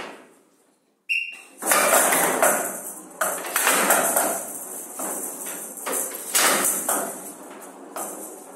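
A showdown rally: the rattling ball struck by the players' bats and knocking off the side walls of the wooden table in a string of sharp knocks, its metal beads rattling between hits. A short whistle sounds about a second in.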